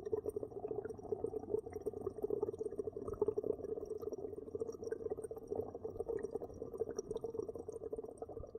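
Bubbles blown into liquid: a steady, fast bubbling that dies away right at the end.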